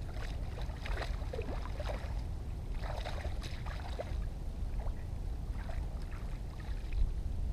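Water splashing and sloshing in irregular bursts as freshly caught tilapias are rinsed by hand in shallow lagoon water, over a steady low wind rumble on the microphone.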